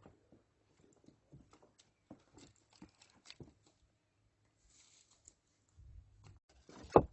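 Irregular crunching and rustling footsteps on dry, stony ground, with one loud knock near the end.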